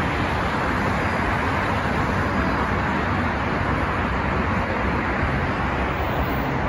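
Steady road traffic noise from a multi-lane road below: a continuous hum of passing cars with no single vehicle standing out.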